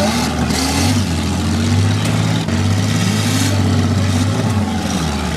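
Demolition derby car engines running and revving, their pitch repeatedly rising and falling as the cars accelerate and back off.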